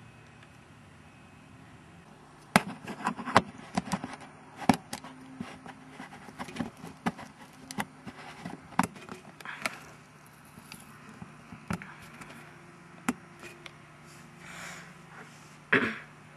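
Camera handling noise picked up close by the camcorder's own microphone: a run of irregular sharp clicks, taps and scrapes from fingers working the screw-on wide-angle conversion lens at the front of the camera. It starts about two and a half seconds in, eases off, and ends with a louder knock.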